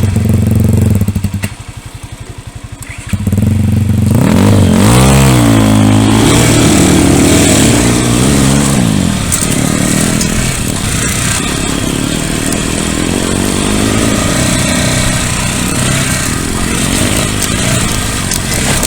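Pit bike engine running loud. It drops to a low idle for a couple of seconds near the start, then revs up and down and runs on steadily under way.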